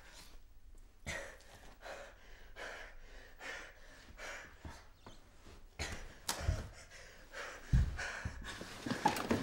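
A person breathing hard in quick gasping breaths, a little over one a second, with a few dull thumps in the last few seconds.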